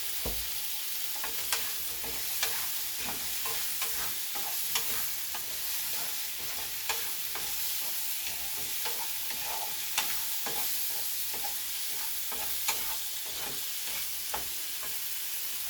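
Diced chicken, tomatoes and bell peppers sizzling in a frying pan while being stirred, with a steady hiss and irregular sharp knocks of the stirring utensil against the pan.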